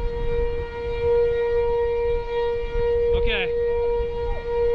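Outdoor tornado warning siren sounding one steady, unchanging wail over a low rumble of wind on the microphone. A brief voice cuts in about three seconds in.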